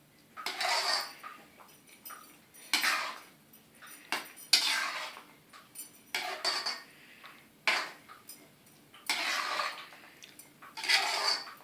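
Metal spatula scraping and stirring thick semolina halwa around a metal kadhai, in separate strokes every second or two. The halwa is being cooked down until its water dries off.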